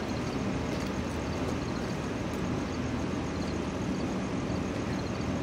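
Steady low rumble of an idling engine, unchanging in level, with no speech over it.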